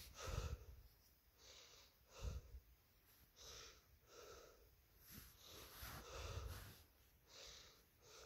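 Faint breathing close to the microphone, a soft breath about every second, with little else above near silence.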